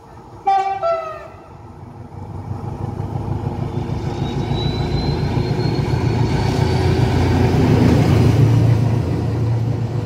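SM42 diesel shunting locomotive sounding a short two-note horn blast, the second note a little lower. Its diesel engine then grows steadily louder as the light engine approaches and passes, loudest near the end.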